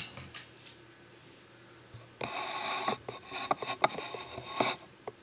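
Close handling noise: a crackly rustle with many sharp clicks from about two seconds in until near the end, as the phone is moved in among the plant's leaves and paper flowers. Two single clicks come right at the start.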